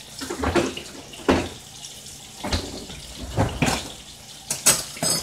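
Kitchen handling noises as a bottle goes back into the refrigerator: a string of separate knocks and bumps, then a short, sharp, bright clatter near the end, over a faint steady hum.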